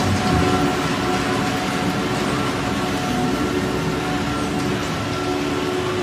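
Tractor pulling a running TMR feed mixer wagon along a barn feed alley: a steady engine-and-mixer drone with a constant hum.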